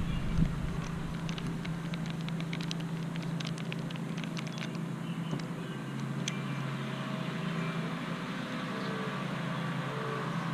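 A screwdriver turns a small screw out of a hard plastic knife sheath, giving a run of small clicks through the first few seconds, followed by the sheath being handled. A steady low hum runs underneath.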